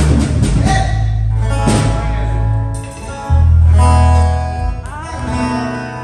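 Amplified bass guitar and guitar being played loosely in a band soundcheck: long, deep bass notes under plucked guitar notes, with a note bending upward about five seconds in.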